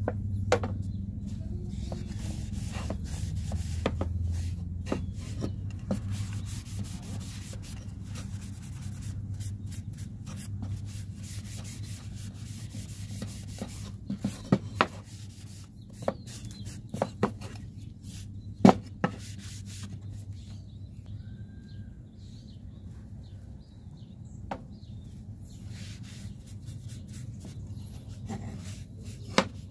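Pine boards of a glued cross lap joint knocking and scraping against a wooden workbench as the joint is handled, with several sharp wooden knocks clustered around the middle and one near the end. A cloth rubs over the wood as glue squeeze-out is wiped off, over a steady low hum.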